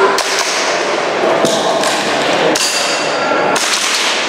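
Gas blowback airsoft pistol firing several sharp shots, about a second apart, with a reverberant tail after each.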